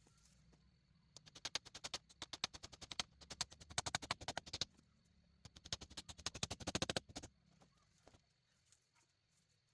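Two bursts of sharp knocks in quick succession. The first starts about a second in and lasts about three seconds; the second, after a short pause, lasts about two.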